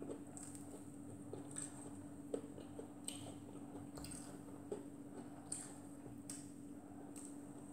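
Faint close-up eating sounds: chewing and mouth noises, with scattered small clicks and squishes as pieces of fried fish are pulled apart by hand, over a steady hum.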